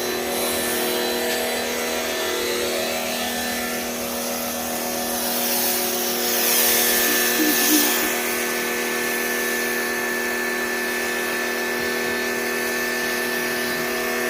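Inlasha 2000-watt electric pressure washer running with a steady motor hum while its spray hisses, the hiss growing louder for a few seconds midway.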